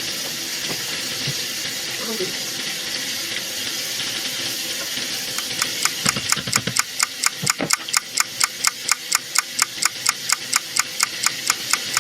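Chicken tenders deep-frying in hot grease, a steady strong sizzle. About halfway through, a fast, even clicking starts up, about four or five clicks a second, and stops shortly before the end.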